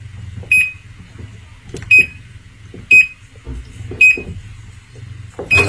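Top-loading washing machine's control panel beeping as its buttons are pressed: four short, high beeps about a second apart.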